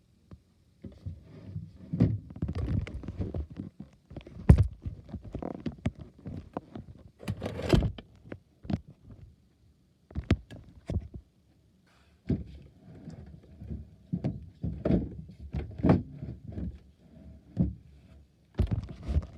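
Irregular thumps, knocks and rustling, with a few short silent gaps: handling noise from the recording phone or camera as it is moved about.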